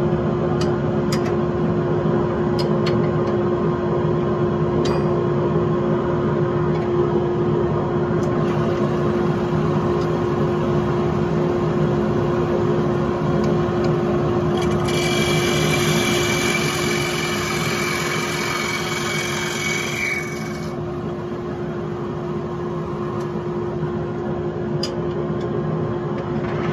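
Wood lathe running with a steady motor hum. A little past halfway, a hand turning tool is held against the spinning wooden disc for about six seconds, adding a loud, high scraping whine of the cut that stops abruptly. A few light taps are heard elsewhere.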